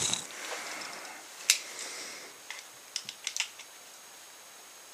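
A few light, sharp clicks and ticks, one about a second and a half in and a small cluster around three seconds: pliers and a small metal tap knocking against a plastic action-camera body while a new thread is hand-tapped into its tripod mount.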